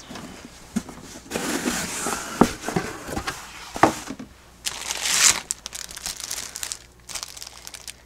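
Paper packaging crinkling and rustling as a subscription book box is opened and its contents unwrapped, with a couple of sharp snaps and softer crackles after.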